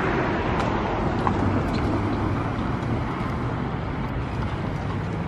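Steady city street ambience: the continuous rumble of road traffic.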